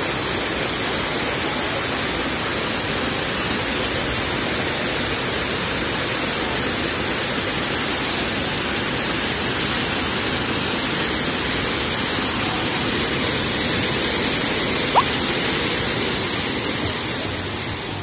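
Steady rushing of a waterfall, an even, unbroken noise, with one brief high squeak about fifteen seconds in.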